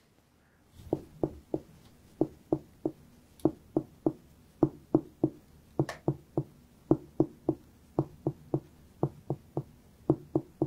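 Finger-on-finger percussion of the abdomen: light taps, about three a second in clusters of three or four, starting about a second in. The taps work down the right side to find the liver's lower border by the change in note.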